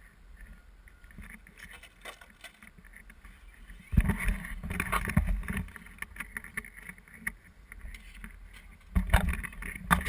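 Electric Traxxas RC truck driving on a concrete skate bowl: motor and tyre noise that comes and goes, louder in bursts of throttle about four seconds in and again near the end.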